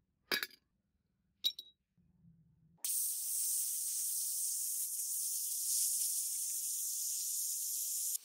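Two sharp clicks, then from about three seconds in a steady, loud air hiss from a handheld blowing tool aimed at a model car body, cutting off suddenly at the end.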